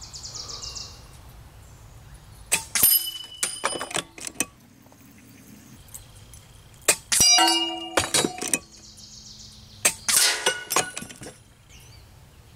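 A Kalibrgun Cricket 2 Tactical .22 PCP air rifle firing at steel silhouette targets. Pellet hits clang and ring the metal plates as they are knocked down. The strikes come in three groups, about three, seven and ten seconds in.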